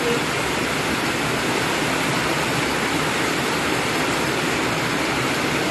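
Water rushing steadily through a concrete channel, an unbroken even noise.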